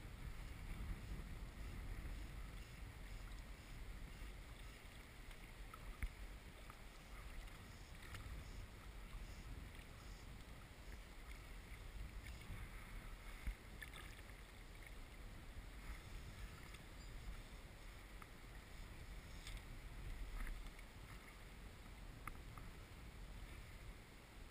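Faint water lapping and sloshing around a float tube as it moves on the lake, over a steady low rumble, with a couple of small knocks.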